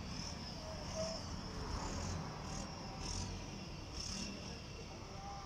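High, shrill insect chirping that swells and fades in irregular pulses, over a low steady background rumble.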